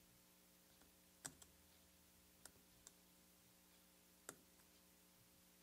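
Faint, sparse small clicks of a tiny screwdriver working the battery-retainer screw inside an opened quartz watch. There is a sharp click about a second in, a couple more around two and a half seconds, and another just past four seconds, over near-silent room tone with a faint steady hum.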